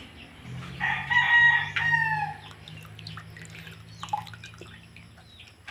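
A rooster crows once, about a second in: one long high call lasting about a second and a half, dropping at its end.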